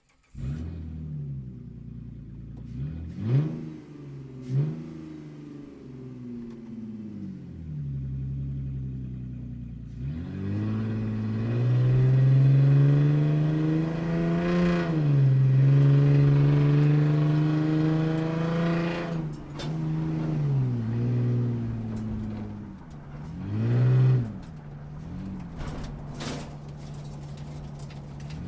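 Sports car engine revving and driving close by. It gives two sharp rev blips a few seconds in, then pulls for several seconds at higher, louder revs that rise and fall, drops back, and blips once more near the end.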